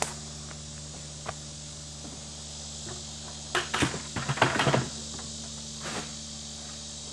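Knocks and rattles of camping gear being handled and set down in a canoe, loudest in a cluster about three and a half to five seconds in, over steady chirring of insects.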